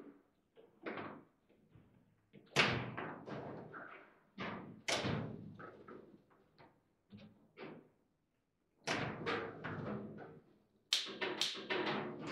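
Table football (foosball) play: the hard ball knocked by the plastic player figures and the rods clacking against the table, in several short bursts of sharp knocks with brief quiet gaps between. Near the end comes a quick run of loud knocks while a goal is scored.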